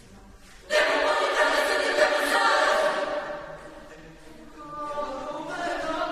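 Mixed chamber choir of women's and men's voices singing a cappella: a sudden loud full chord comes in about a second in, holds for about two seconds and fades away, then a second phrase swells up near the end.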